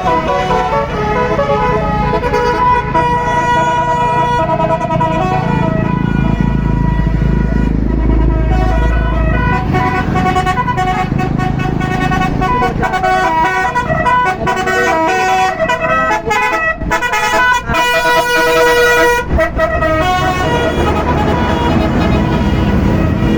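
Tour bus Basuri telolet musical air horn with roof-mounted trumpets, playing a tune of quickly changing notes with some longer held ones, over a bus engine that rumbles louder for a few seconds about a quarter of the way in.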